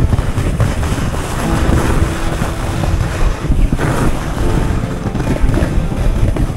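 Strong wind buffeting the microphone: a dense, steady low rumble of noise.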